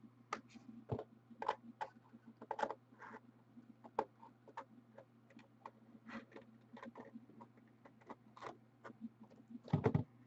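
Faint scattered clicks and light scratching of hands handling an aluminium briefcase-style card box at its latches, with a few louder knocks near the end.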